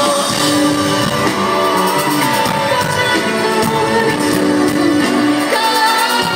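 Live rock band playing a song, with a singer's voice over the instruments; loud and steady throughout.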